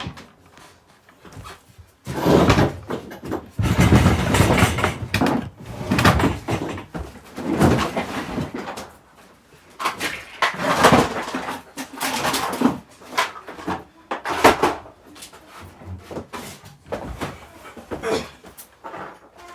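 A run of irregular knocks, thumps, bumps and rustling from things being handled and moved about, with a door opening or closing among them; the heaviest thumps fall a few seconds in.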